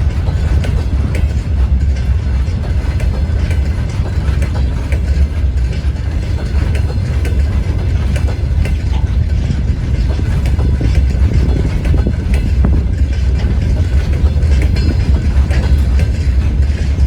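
Freight train rolling slowly past at about 20 km/h, with a steady low rumble and irregular clicks and knocks from the wheels running over the rails.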